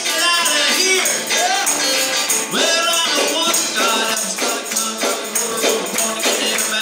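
Live gospel music: electric guitar and band with a tambourine shaken in a steady beat.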